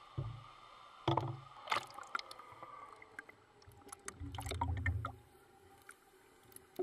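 Swimming-pool water splashing and bubbling in short irregular bursts, with a longer low rumbling burst about four seconds in.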